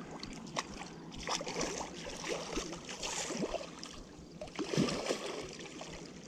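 Irregular water splashing and sloshing at the surface as a small hooked carp thrashes while being played in close to the bank.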